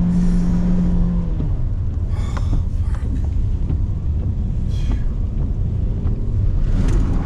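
Car driving, a steady low rumble of engine and road noise, with a held engine tone that drops away about a second and a half in.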